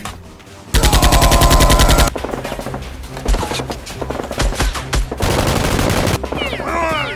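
Rapid automatic-gunfire sound effect: a loud burst of about a second and a half starting just under a second in, scattered single shots, then a second shorter burst near the end.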